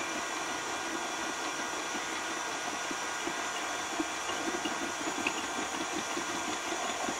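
KitchenAid stand mixer's motor running steadily at high speed, driving the food processor attachment's slicing disc, a whirring hum with a steady whine.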